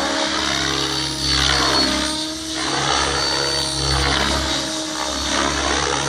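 Blade 700X electric RC helicopter flying: a steady motor and rotor whine with the blade noise swelling and fading every second or two, its pitch sweeping up and down as the heli manoeuvres.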